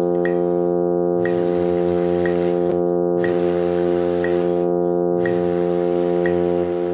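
A sustained electronic reference drone note held steady, with a metronome clicking about once a second over it. Stretches of breathy hiss come and go between the clicks.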